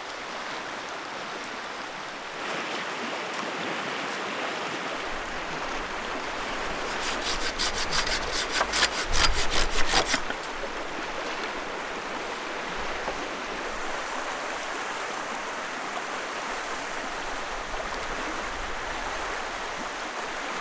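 Steady rush of a fast-flowing river. About seven seconds in, some three seconds of quick repeated strokes of a blade cutting into a wooden stake, the loudest sound here.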